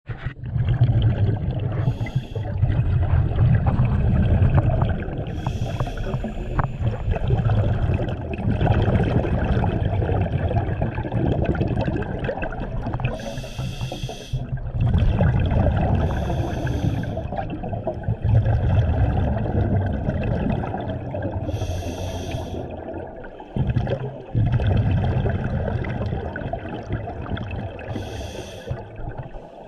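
Scuba breathing heard underwater: a regulator's exhaled bubbles rumbling and gurgling almost continuously, broken every few seconds by a short hiss of an inhale.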